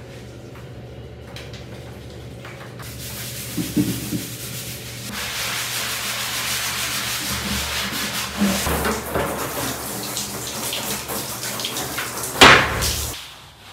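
Plastic cat litter box scrubbed with a sponge and baking soda: a steady, rough rubbing that starts about five seconds in. Near the end comes a short, loud rush of water as the shower hose sprays into the box.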